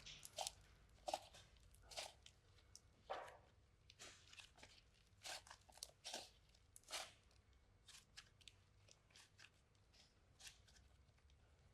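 Faint, irregular crunching and clicking from slime and a small toy being handled, a few sharp sounds each second, fewer near the end.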